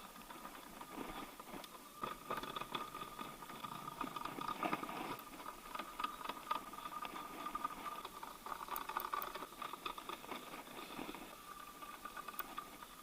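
Irregular small metallic clicks, taps and rattles of a hand tool working the valve cover bolts, tightening them down on the 1.8 engine's cylinder head.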